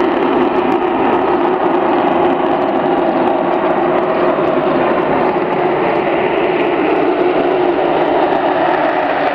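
F-35A's single Pratt & Whitney F135 jet engine running at low power as the fighter taxis: a loud, steady jet drone.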